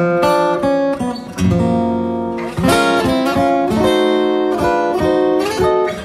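Solo acoustic guitar playing an instrumental passage: plucked chords and single notes ringing on, with a few full strummed chords, such as one about a second and a half in and another about two and a half seconds in.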